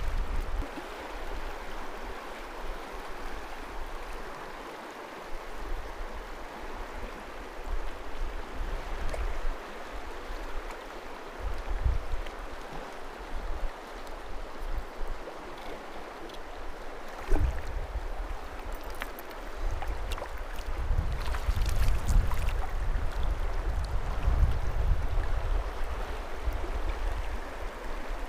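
River current running steadily. Irregular low rumbles come and go, loudest in the second half.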